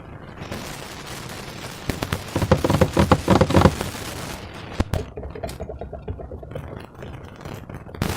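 Slime being squished and kneaded by hand: a run of wet crackling pops, densest and loudest from about two to four seconds in, then scattered clicks.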